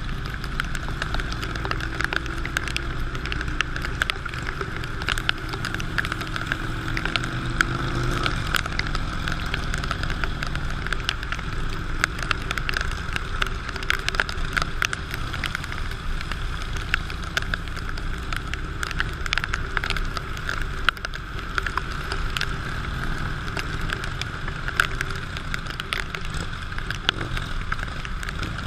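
Motorcycle riding in the rain: a steady engine and wind or road noise, with many sharp ticks of raindrops striking close by.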